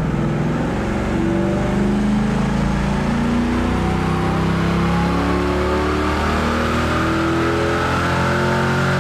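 Chevrolet LS1 5.7-litre V8 of a 2000 Camaro at full throttle on a chassis dyno, the drive tyre spinning the roller, during a baseline power run. It runs loud and steady, with a faint whine climbing slowly in pitch through the pull.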